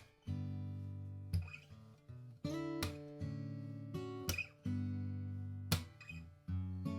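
Gibson Hummingbird square-shoulder acoustic guitar played with chords struck and left to ring, a new chord about every second or so.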